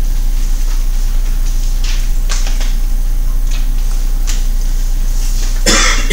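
Steady low electrical hum with a few faint clicks and rustles, and a short louder rustle near the end.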